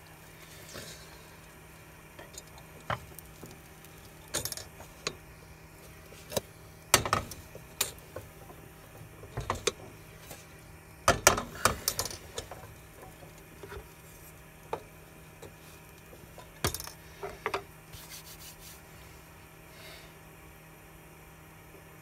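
Scattered clicks, knocks and light clatter of small hard objects being handled, the loudest bunched about seven and eleven seconds in, over a low steady hum.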